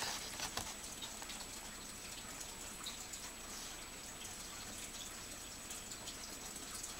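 Faint steady background hiss (room tone) with a few soft clicks as a phone is handled.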